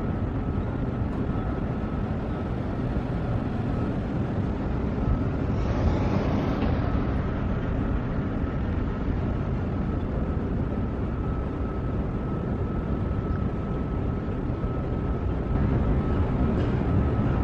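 Jet engines of a twin-engine airliner climbing out after takeoff, heard from about 700 m away: a steady low rumble, with a brief swell of hiss about six seconds in.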